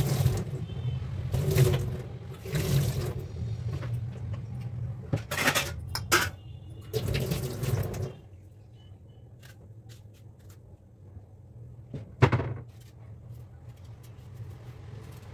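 Tap water running and splashing over fruit in a kitchen sink as it is rinsed by hand, in uneven surges that stop about eight seconds in. A single sharp knock comes about twelve seconds in.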